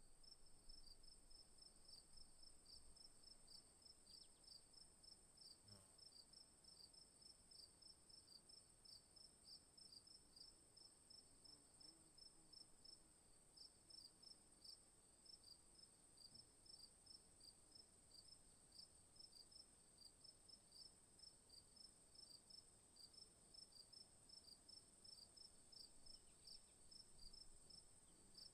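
Faint night insect chorus: crickets chirping in a steady rhythm, several chirps a second, over a continuous high-pitched insect trill.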